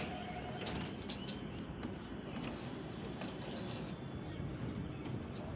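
Scattered light clicks and creaks of steel reinforcement bars being handled and laid into a slab mesh, with a few faint bird chirps.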